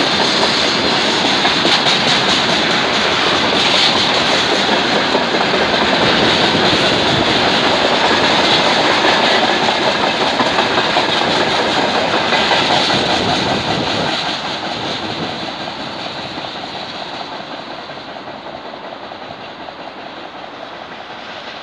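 Freight train of tank cars and hopper wagons rolling past close by: a loud, steady rumble and clatter of wheels on the rails, which drops off about 14 seconds in as the last wagon goes by and then fades as the train moves away.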